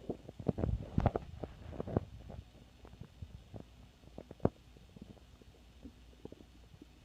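Stomach growling: a busy run of bubbling gurgles and pops over the first two seconds, then scattered single pops and squeaks that thin out, with one sharp pop about halfway through.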